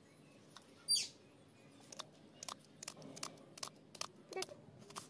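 Kitchen knife cutting through a peeled onion onto a wooden chopping board, short taps about two or three a second starting about two seconds in. A single bird chirp about a second in is the loudest sound.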